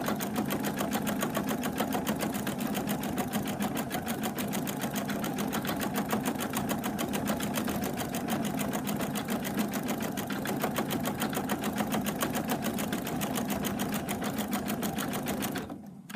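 Husqvarna Viking Designer Topaz 30 embroidery machine stitching a design into a hooped towel: a fast, even needle rhythm that runs steadily and cuts off near the end.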